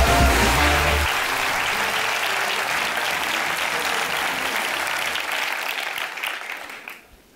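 Audience applauding, which fades away near the end. Intro music with a bass line stops about a second in.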